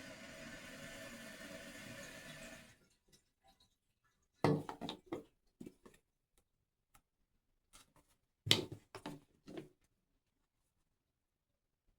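Water running steadily from a tap, shut off about three seconds in, followed by two short bursts of knocks and clatter from things being handled.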